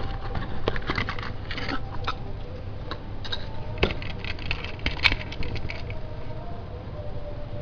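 Handling noise of a plastic toy train and its packaging: a quick run of small clicks, taps and scrapes as the locomotive is freed from its plastic tray and handled, dying down about six seconds in.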